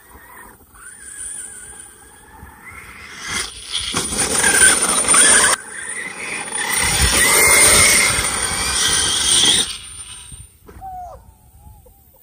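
Large-scale electric RC off-road car driving fast on a sandy dirt track, its motor whining and rising in pitch as it comes on, then loud from about three to ten seconds in as it passes close, with its tyres churning sand and dirt.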